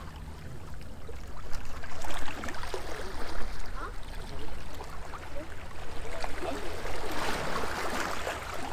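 Small sea waves washing and lapping against a stone seawall, with a louder surge of water about seven seconds in.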